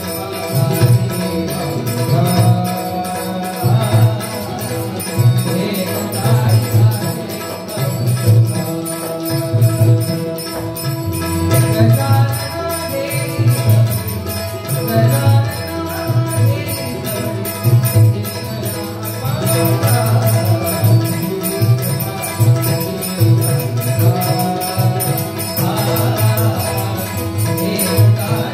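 Harmonium, tabla and taal (small hand cymbals) playing a Marathi abhang together: sustained harmonium chords over a steady tabla rhythm, with the cymbals ringing continuously.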